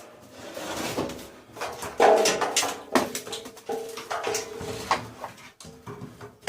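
Sheet-metal and metal parts of a tumble dryer being stripped for scrap, clanking and rattling as they are handled, with repeated sharp knocks, some leaving a short metallic ring.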